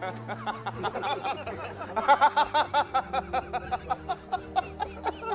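Two men laughing hard in rapid, repeated 'ha-ha' bursts, with steady background music underneath.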